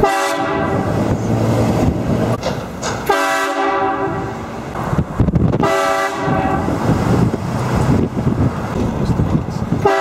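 Truck-mounted train horn blasting three times, about three seconds apart, each blast loud and fading out over a second or two, with road and engine noise between the blasts.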